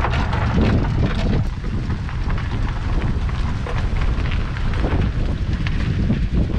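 Wind buffeting the microphone, a low rumble that rises and falls, with a 3/4-scale Case 65 hp steam traction engine running as it approaches.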